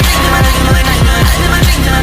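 Loud electronic music with a heavy bass line and a fast, steady beat of deep kick-drum hits.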